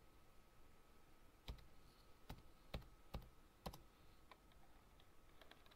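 Faint computer keyboard keystrokes: about five separate clicks over two seconds as a short command is typed and entered, then a few fainter taps near the end.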